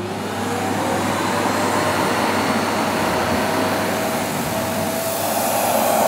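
Vacuum cleaner's motor spinning up with a rising whine over the first second, then running steadily as its hose nozzle sucks a woman's hair through a hair tie to make a ponytail. About five seconds in the sound gets a little louder and brighter.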